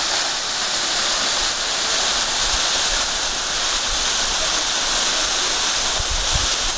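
Waterfall pouring down a rock face and splashing into a pool: a steady, even rushing hiss.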